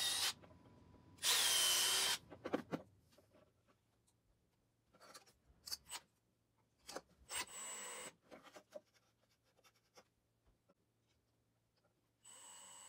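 Milwaukee FUEL cordless driver running in short bursts, driving screws, its motor pitch rising and falling with each trigger pull. The loudest burst comes about a second and a half in, quieter ones around five and seven seconds, with clicks of handling between, and another run starts near the end.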